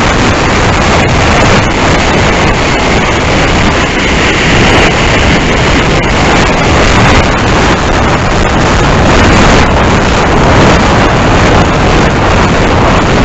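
Loud, steady wind rush over the onboard camera of a Freewing Lippisch P.15 electric ducted-fan RC jet in fast flight. A faint higher whine shows through for a few seconds in the middle.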